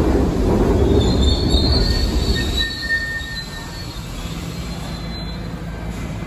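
New York City subway train braking into a station: a loud low rumble of wheels on rail, with high-pitched wheel and brake squeals between about one and three seconds in. The rumble then drops to a quieter, steady level as the train slows to a stop.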